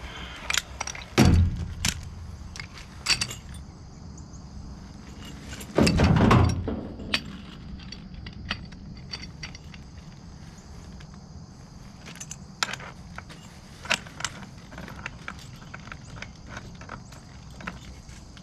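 Clinks, clicks and knocks of tools and parts being handled, with two loud thumps, one about a second in and a longer one around six seconds in, over a steady low hum.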